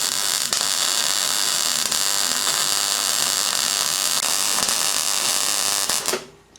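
Loud, steady hissing noise with no clear pitch, fading out about six seconds in.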